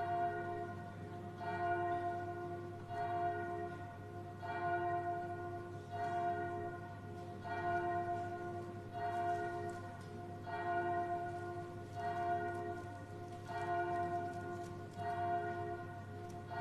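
A single church bell tolling the same note over and over, one stroke about every second and a half, each ring fading into the next: a funeral toll.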